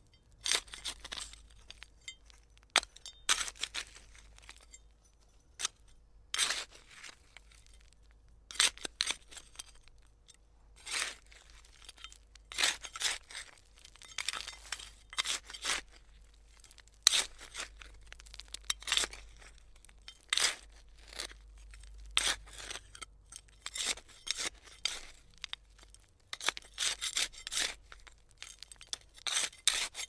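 A digging tool scraping and scooping into soil with stones in it, in repeated short strokes at irregular intervals, sometimes in quick clusters.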